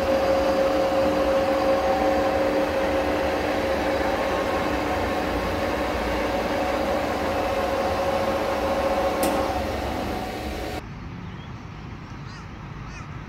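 Large LZMT engine lathe running with a big steel tube turning in its chuck: a steady whine of several held tones over machine noise, with one sharp click about nine seconds in. About eleven seconds in the machine sound cuts off abruptly to a much quieter background.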